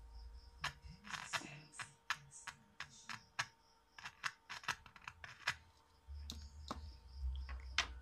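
Small paper-cone loudspeaker giving a string of sharp, irregular clicks and crackles as a AA battery is touched to its wire leads, each contact jolting the cone in a DC polarity test. The clicks come thick for about five seconds, pause, then a few more near the end.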